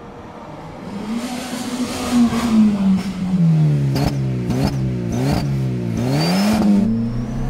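Fiat Palio 1.0's four-cylinder engine revved in several quick blips, its pitch rising and falling again each time, with a thin high whistle at the top of some revs from the cheap whistle fitted into the exhaust to make it sound sporty.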